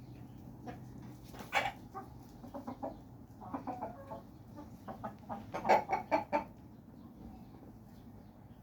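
Chickens clucking: a string of short, abrupt clucks, with a loud one about a second and a half in and a louder cluster around six seconds, then quieter.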